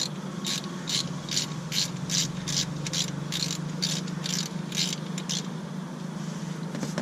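3/8-inch-drive ratchet with a 17 mm socket clicking in quick strokes, about two to three clicks a second, as it backs out the oil screen plug; the clicking stops about five seconds in. A steady low hum runs underneath.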